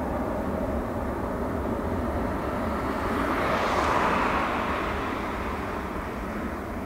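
Four jet engines of a Boeing 747 freighter at climb power just after take-off, giving a steady rushing rumble. It swells to its loudest about four seconds in, brightening into a hiss, then starts to fade as the jet climbs away.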